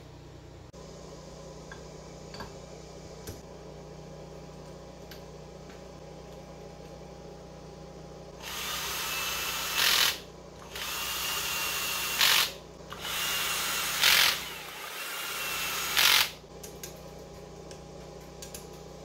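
Cordless drill running bolts into a motorcycle cylinder head: after a few faint clicks of parts being handled, about eight seconds in it spins in four runs of roughly one to two seconds each, each ending in a brief louder burst as the bolt seats.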